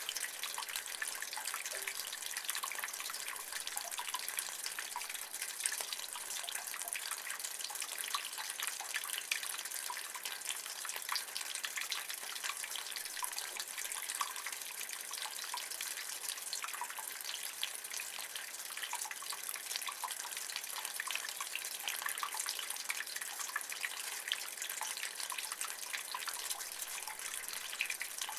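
Rainwater running and dripping in a rain gutter: a steady splashing hiss dotted with many small drip ticks.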